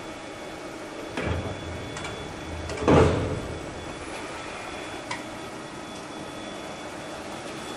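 CNC metal spinning lathe running with a steady hum and a faint high whine while forming a metal tube into a silencer shell. A louder rush comes about a second in, a stronger one that fades over half a second comes about three seconds in, and a small click follows near five seconds.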